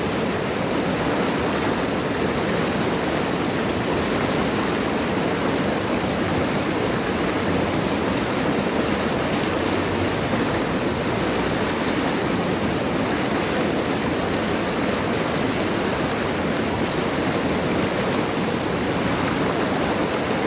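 River water rushing steadily, an even loud roar of flowing water with no breaks.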